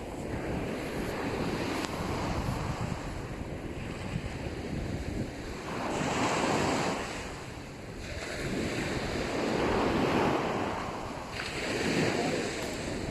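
Sea waves breaking and washing up a sandy beach, swelling and fading in surges every few seconds. Wind on the microphone adds a constant low rumble underneath.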